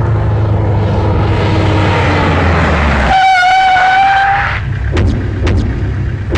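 A low rumble with a slowly falling tone, then a single steady horn-like blast about three seconds in, lasting about a second and a half, followed by a few sharp clicks.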